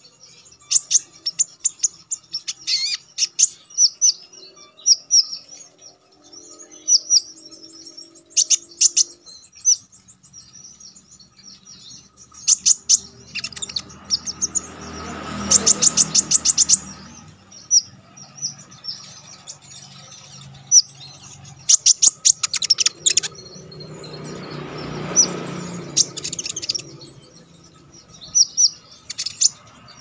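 Caged Van Hasselt's sunbird (kolibri ninja) singing: sharp, high-pitched chirps broken by fast rapid-fire trills, the loudest trills about halfway through and again a few seconds later. Two spells of low rushing noise sit behind the song.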